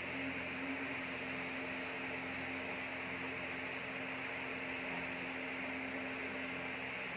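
Steady electrical hum with an even hiss over it, unchanging throughout, typical of running power equipment or a cooling fan.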